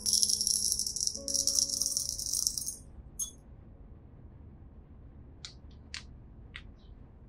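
Roasted coffee beans pouring into a glass cup, a dense rattle that stops about three seconds in, followed by a few faint clicks.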